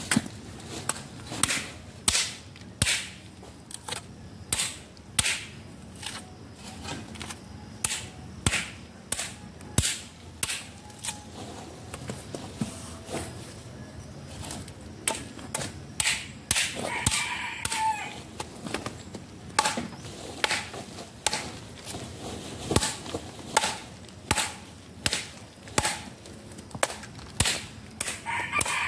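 Repeated sharp chopping strikes, about two a second, of a blade hacking thick bark off a tree trunk. A rooster crows once about two-thirds of the way through.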